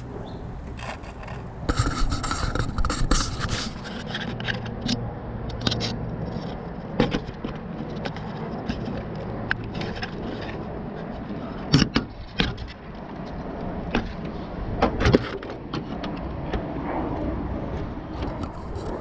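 Irregular scraping and handling noise with scattered sharp knocks, the loudest knocks about 12 and 15 seconds in.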